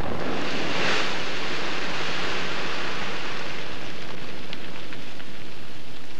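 Blasted rock and debris raining down after a rock blast: an even rushing hiss, strongest in the first second and slowly thinning, with a few faint clicks of small stones landing later on.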